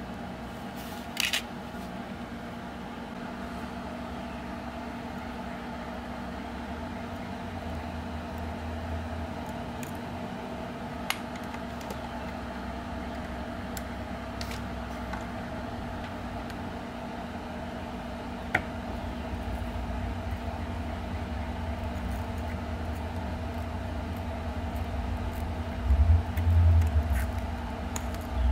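Steady low mechanical hum, with a few light clicks as wire and thread are handled at a fly-tying vise, and a few low thumps near the end.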